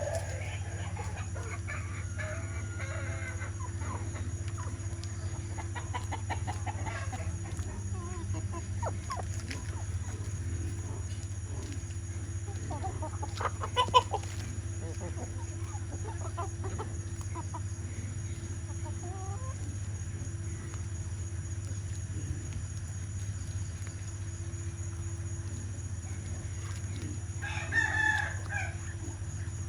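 Chickens clucking, with a rooster crowing once near the end, over a steady low hum. A single sharp knock about halfway through is the loudest sound.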